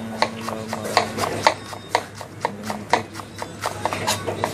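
Kitchen knife chopping spring onions on a cutting board: quick, uneven taps of the blade on the board, about four a second. A steady low hum runs underneath.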